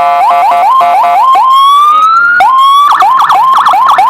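Replica CJB 100A 45-watt electronic siren cycling through tones: a quick rising chirp repeated about four times a second, then a slow rising wail about a second and a half in, then quick yelping chirps again near the end.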